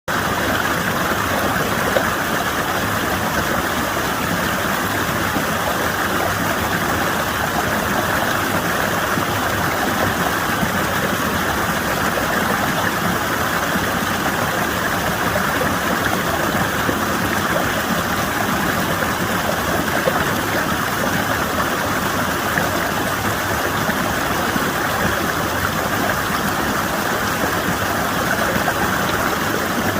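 Water rushing steadily down a narrow channel in rock, a continuous even rush without a break.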